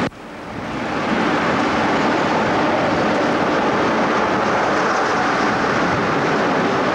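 Diesel locomotive running past close by, its engine and wheel noise building over the first second and then holding steady and loud.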